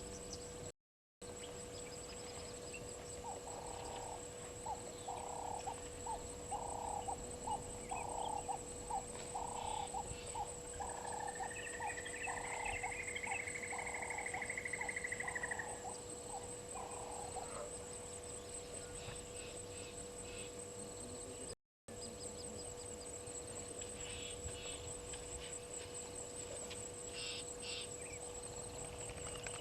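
Wildlife calling at a waterhole: a repeated call about twice a second for some fifteen seconds, with a long whistle rising and falling over part of it, against a steady high whine and a low hum. The sound cuts out completely twice, briefly.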